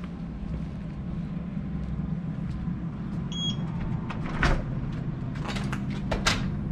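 Short electronic beep from a door access fob reader, then the clunk of the door lock releasing and the metal-framed glass door being pulled open, with a few more clicks and knocks. A steady low rumble runs underneath.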